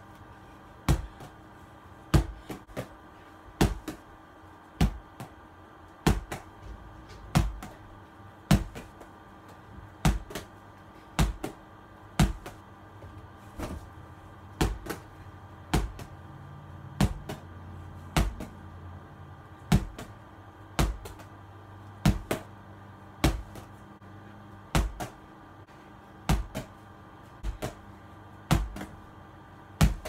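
A small ball thrown against a wall and caught, over and over. Each throw gives a sharp hit, about one every second or so, some followed closely by a second, smaller one.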